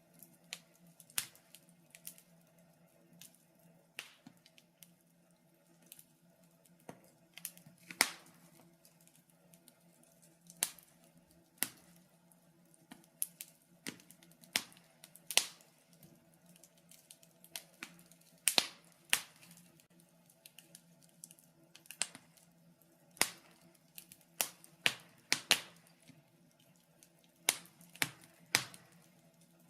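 Wood fire in a fireplace crackling, with irregular sharp pops and snaps about once or twice a second, a few of them louder, over a faint steady low hum.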